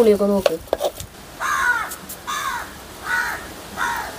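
A crow cawing four times in a row, starting about a second and a half in.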